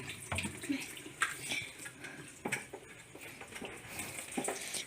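A few light clinks and knocks, spread out, of containers and refrigerator parts being handled during cleaning.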